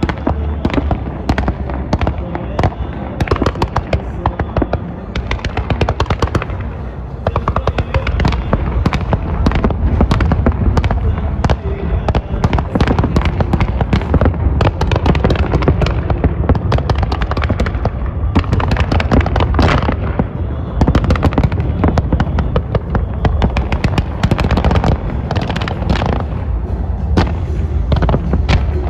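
Fireworks display going off in a rapid, continuous barrage of bangs and crackles over a deep rumble.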